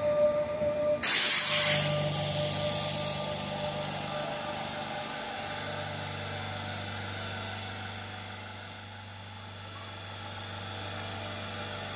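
Renfe Cercanías Class 447 electric multiple unit standing at a platform. A steady whine runs for about a second, then a loud hiss of air breaks out for about two seconds, and after it comes a steady low hum from the train's onboard equipment.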